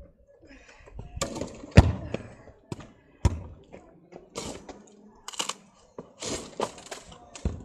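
A string of irregular thuds and knocks, the loudest about two seconds in, with short spells of scuffing noise between them.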